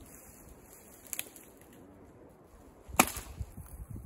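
Dry dead branches cracking: a small crack about a second in, then one loud, sharp snap about three seconds in.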